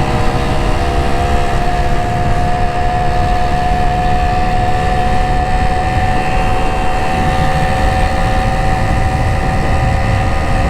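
Honda LS125R's single-cylinder four-stroke engine running at a steady cruising speed, its pitch holding even under a low rumble.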